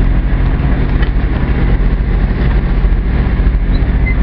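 Fishing boat's engine running steadily, with wind and water noise on top.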